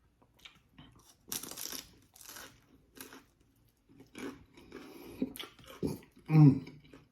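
Close-miked chewing and crunching of food during a mukbang, in irregular bites and chews, with a short loud vocal sound from the eater near the end.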